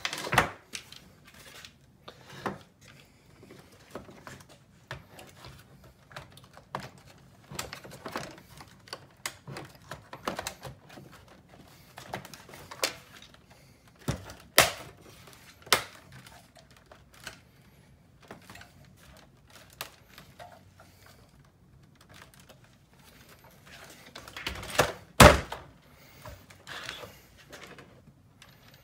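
Hard plastic parts of a Shark Ion robot vacuum clicking and knocking as its body shell is handled and fitted back onto the chassis: scattered irregular taps and clacks, the loudest a sharp knock near the end.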